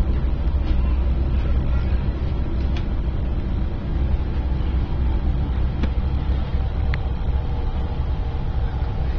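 Steady low rumble of an Airbus A330-300's cabin noise, with a few faint clicks.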